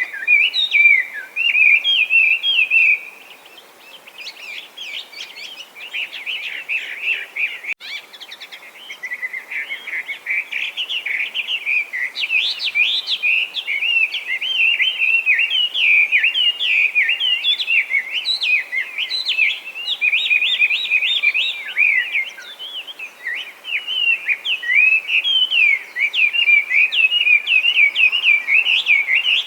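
Chinese hwamei singing nonstop: a fast, varied run of loud whistled phrases. The song drops quieter after about three seconds and comes back loud at about nine seconds.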